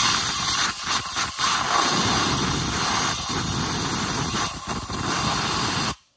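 Compressed-air blow gun blasting air down into a spark plug well to clear out debris before the plug is removed. A loud, steady hiss with a few brief dips, cutting off suddenly near the end.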